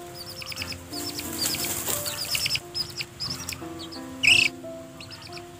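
Chicks peeping in rapid, high, downward-slurred chirps while a hen dust-bathes among them, with a rustling, flapping hiss of wings and body working in loose dust about a second in, and one brief loud call about four seconds in. Background music plays underneath.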